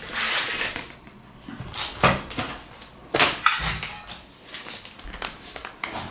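Cardboard and plastic packaging being handled as a saw blade is taken out of its sleeve: a rustle at the start, then a handful of sharp clicks and knocks.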